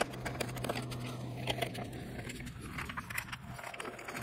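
Small screwdriver working screws out of a laptop's plastic bottom panel: a run of light, irregular clicks and scrapes over a faint low hum.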